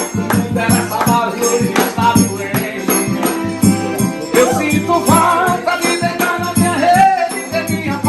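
Recorded forró music playing, a steady beat with a shaker-like rattle and a melodic line.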